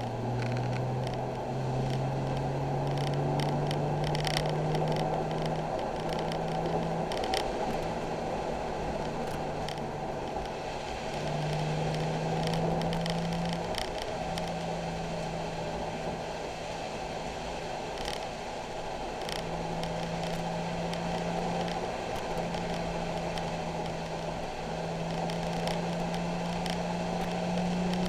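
Nissan 370Z's 3.7-litre V6 running at moderate, fairly steady revs, heard from inside the car, climbing slowly at first with a few short breaks in the engine note. Steady tyre and road hiss on the wet track runs underneath, with scattered clicks and rattles.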